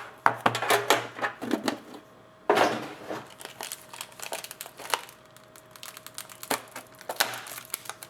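Plastic wrapping crinkling and tearing as a trading-card pack is opened and the cards handled, in irregular crackly bursts with a brief pause about two seconds in.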